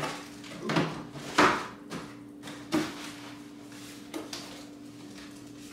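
Household clatter from tidying up: a handful of short knocks and thuds, about a second apart, of things being handled and put down, over a steady hum.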